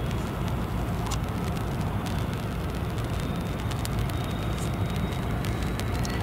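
Twin General Electric TF34 turbofan engines of an A-10 Thunderbolt II, a steady jet rumble as the aircraft flies past and banks overhead.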